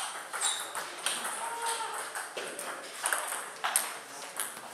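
Celluloid-type table tennis balls clicking and pinging off tables and bats, several sharp knocks at irregular intervals.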